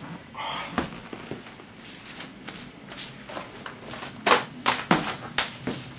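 Shuffling and scattered knocks of a person moving about on a hard floor, with a few sharper knocks between about four and five and a half seconds in.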